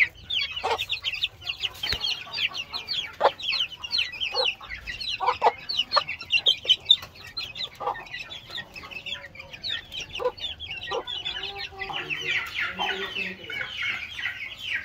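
A flock of Aseel chicks peeping without pause in short, high, falling notes while they feed, with sharp pecking taps on a metal feed pan. A hen clucks low a few times in the second half.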